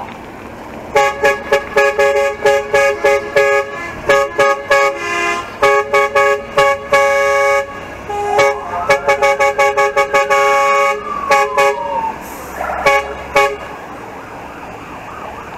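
Fire engine horns blaring in rapid repeated blasts, several notes sounding together. Partway through, a siren sweeps up and then down once.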